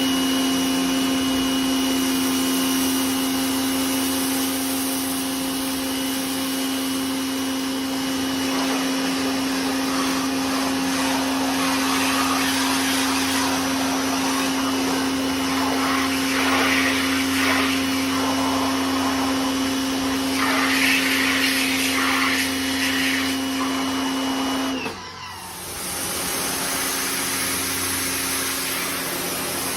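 Electric pressure washer running: a steady motor hum under the hiss of the water jet, the spray noise growing louder and rougher in stretches. About 25 seconds in the motor hum cuts off suddenly, and after a brief dip a steady hiss carries on.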